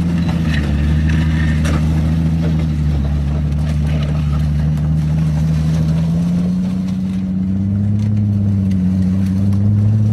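Toyota Supra's straight-six engine running at low revs, its pitch rising a little about six seconds in, as the car creeps over gravel with one rear wheel off.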